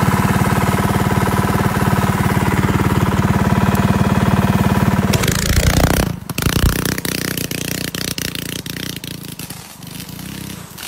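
A small go-kart engine running fast with a rapid, even pulse, loud and steady for about five seconds. About six seconds in it gives way to quieter, irregular crackling pops that fade off.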